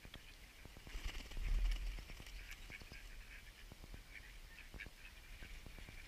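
Mallards giving many short, soft calls in quick succession, with a brief low rumble about a second and a half in.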